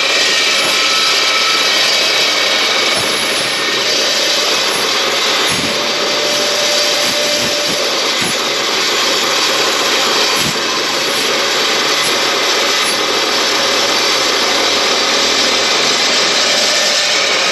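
Evolution S380CPS 15-inch dry-cut metal chop saw with a carbide-tipped blade cutting steadily through the flat web of a steel channel, a loud continuous cutting noise. The saw is working harder here because the flat portion presents more width to the blade at once, but it does not struggle.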